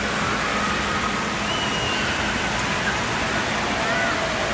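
Steady rushing and spattering of water in an indoor water park pool, with faint voices calling out twice over it.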